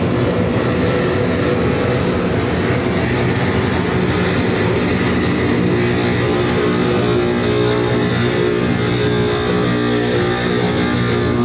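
Live noise music: a loud, dense wall of rumbling electronic noise, with steady droning tones coming through about halfway in and growing stronger toward the end.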